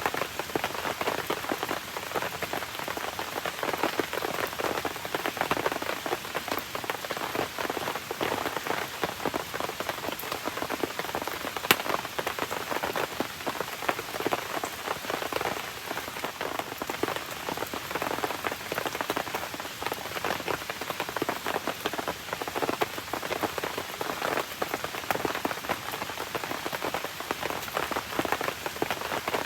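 Steady rain falling alongside a crackling campfire, a dense, even mass of fine ticks with one sharp pop about twelve seconds in.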